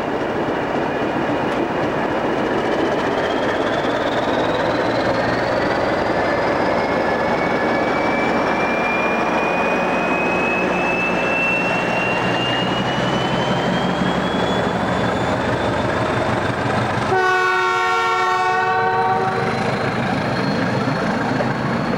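A train running, with a whine that climbs slowly in pitch as it gathers speed. Near the end its horn sounds once for about two seconds.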